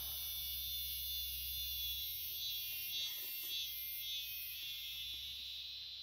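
A steady low hum and a thin high-pitched whine, with a few faint clicks around the middle. The low hum drops away about two seconds in.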